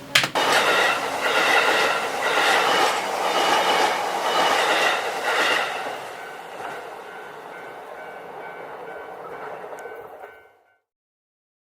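A train-like rhythmic clatter, about three strokes every two seconds, with steady high ringing tones over it, opening with a sharp click. It fades from about six seconds in and cuts off abruptly shortly before the end.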